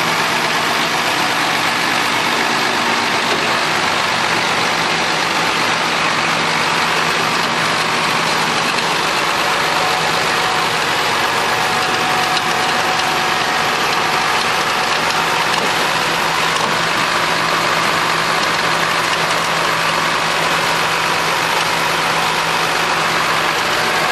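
A motor vehicle's engine idling steadily, with a constant drone that does not change.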